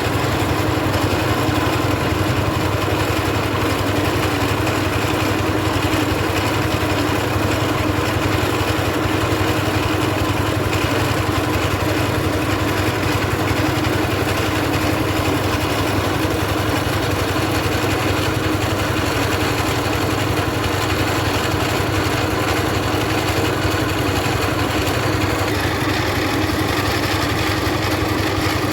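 Engine-driven mobile rice milling machine running steadily at a constant speed, with an even mechanical hum.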